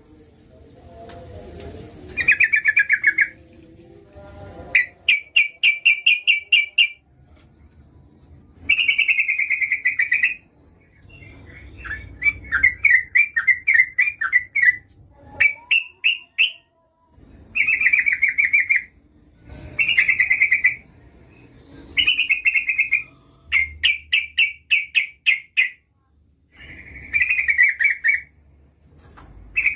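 Female yellow-vented bulbul (trucukan) calling to attract a male. It gives a run of short, rapid chattering phrases, about a dozen, each a second or two long with brief gaps between.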